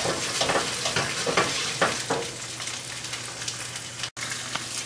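Firm tofu sizzling in hot oil in a non-stick frying pan. For the first two seconds or so the pan is shaken back and forth, about two swishes a second, to fry the pieces evenly; then the sizzle goes on steadily, broken by a very brief gap about four seconds in.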